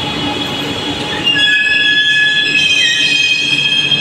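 Chennai Metro train (Alstom Metropolis) moving along the platform, a steady rumble with several high-pitched squealing tones coming in just over a second in; one of them slides upward near the end.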